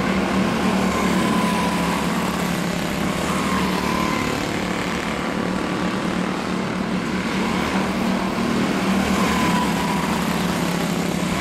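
A pack of quarter midget race cars running flat out around a short oval, their small single-cylinder engines making a steady high buzz whose pitch rises and falls as the cars pass and lift through the turns.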